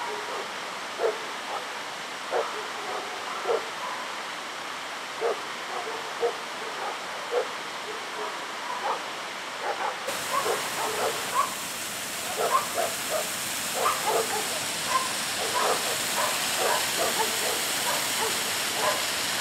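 Short animal yelps, repeated about one or two a second. About halfway through, a steady rush of falling water joins them.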